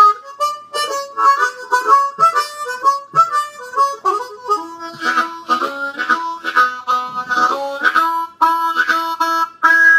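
Diatonic harmonica played solo in 2nd position: a blues riff of rhythmic notes, often two or more sounding together as chords and double stops.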